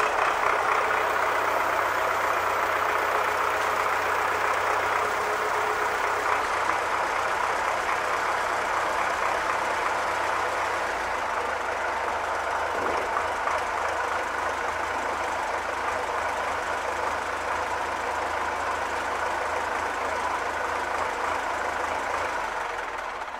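MTZ-80 tractor's four-cylinder diesel engine idling steadily, dying away at the very end as it is shut down.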